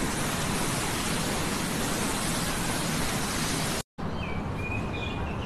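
Steady, even outdoor hiss that cuts off abruptly about four seconds in. It is followed by quieter outdoor ambience with a faint, thin high tone.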